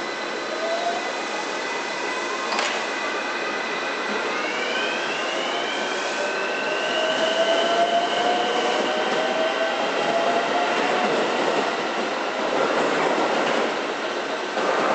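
Ohmi Railway 800 series electric train (ex-Seibu 401 series) pulling away, its traction motor and gear whine rising in pitch in several steps as it gathers speed. There is a sharp click from the wheels on the rails about two and a half seconds in, and rail noise thickens near the end.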